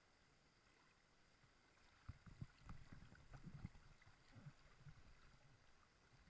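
Faint river water slapping and splashing against an inflatable tube. A run of irregular low slaps comes from about two seconds in and dies down near the end.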